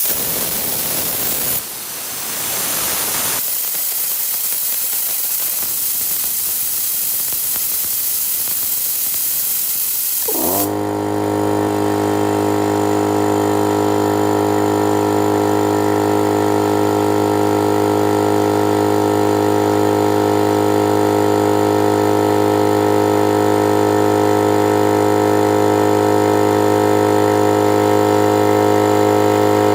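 Compressed air hissing out loudly for about ten seconds. Then the Astro Products AP041022 vertical air compressor's motor starts, spins quickly up to speed and runs with a steady hum.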